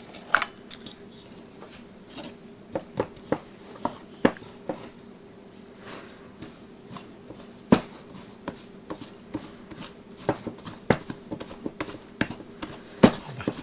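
A wooden spoon stirring stiff bread dough in a stainless steel bowl, knocking against the metal in irregular clicks and knocks, a few of them sharp and loud. A steady low hum runs underneath.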